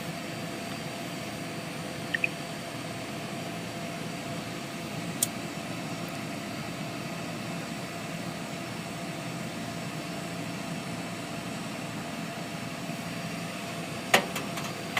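Microwave oven running with a steady hum, with a few sharp snaps about two, five and fourteen seconds in.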